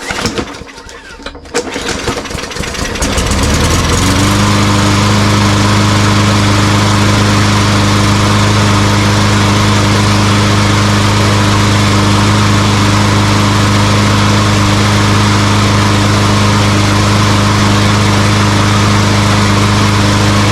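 Hyper Tough push mower's small petrol engine pull-started: a rattle of the pull, then it catches, speeds up over a couple of seconds and runs at a steady speed without dying, its carburetor freshly cleaned.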